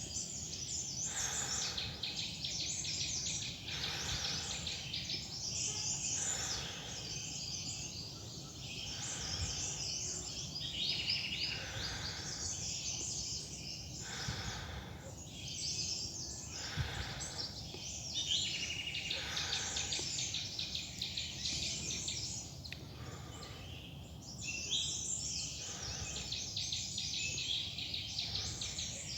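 Many forest birds chirping and twittering at once, a dense high chorus. Footsteps on a loose-soil trail crunch about every second and a half underneath.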